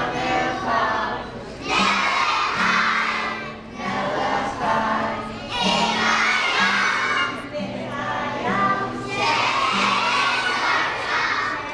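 A class of young children singing a song together as a choir, in phrases of a few seconds each.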